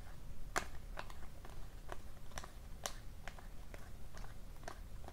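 Stack of hockey trading cards being flipped through by hand, one card at a time, each card giving a short sharp snap, about two a second.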